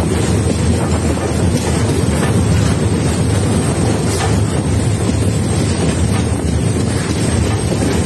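Moving train rumbling steadily along the track, with wind buffeting the microphone; faint clicks come through now and then.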